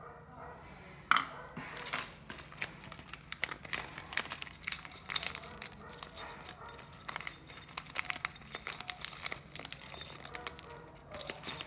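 Clear plastic bag crinkling in the hands, with the small metal screws and brass fittings inside it clicking together; a sharp knock about a second in.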